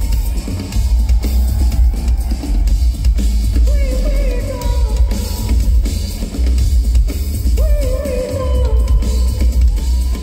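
Amplified live band music with heavy bass and drums, and a long wavering melody note held twice, about four and eight seconds in.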